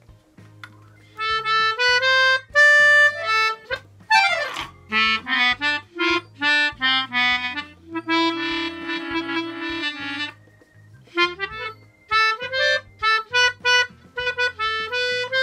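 Hohner melodica played by mouth: a short tune of separate reedy notes, starting about a second in, with a few held notes and a brief pause before a final run of quick notes.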